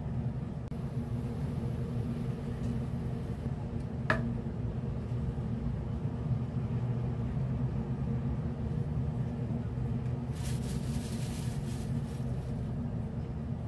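Steady low mechanical hum, like an appliance motor or fan running, with a single short click about four seconds in and a brief hissing rustle near the end.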